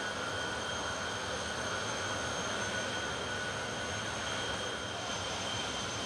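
Jet Funny Cars' turbojet engines idling on the start line: a steady rushing noise with a faint steady high whine through it.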